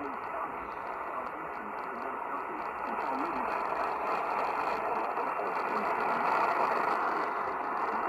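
Radio receiver hissing with heavy static from a weak broadcast signal, narrow and tinny, with a faint voice buried under the noise.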